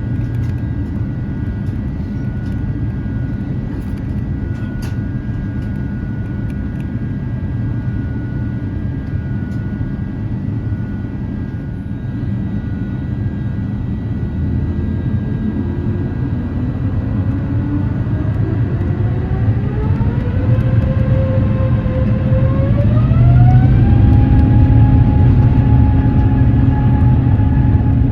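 Steady low cabin rumble of an Airbus A350-900, then about sixteen seconds in a whine rises in two steps and holds steady, growing louder: the Rolls-Royce Trent XWB jet engine spooling up, heard from inside the cabin.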